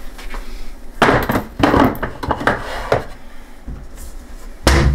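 Knocks and clatter of a lidded plastic canister and other items being put away on a wooden kitchen cupboard shelf: a cluster of knocks about a second in, a few more over the next two seconds, and a heavier thump near the end.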